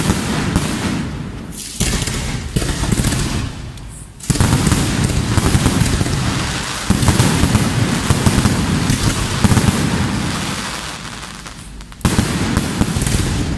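Aerial fireworks bursting: several shells each open with a sudden loud burst, about two seconds in, after four seconds and again near the end, followed by dense crackling of many small pops from glittering stars.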